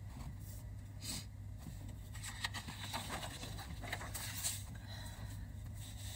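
Sheets of paper rustling and sliding over a wooden table as a written page is moved aside and a blank one laid down, with a short tap about a second in. A steady low hum runs underneath.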